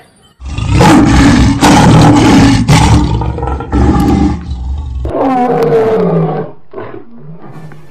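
Lion roar: a loud, rough roar starting about half a second in and lasting about four and a half seconds, followed by a quieter, lower tail whose pitch slides downward.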